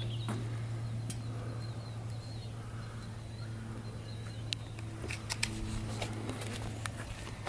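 Diesel engine of a Ford New Holland 655E loader backhoe idling with a steady low hum, with scattered sharp clicks over it.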